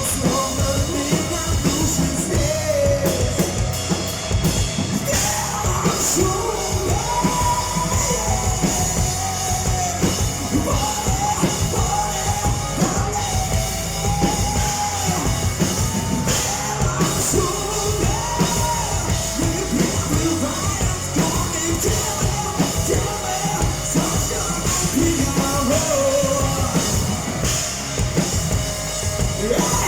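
Rock band playing live: a singer's melody over drums and the full band.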